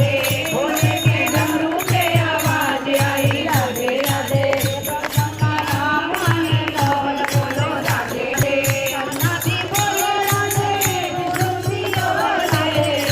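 Hindu devotional bhajan music: a gliding melody line over a steady, quick drum beat, with jingling, rattling percussion on top.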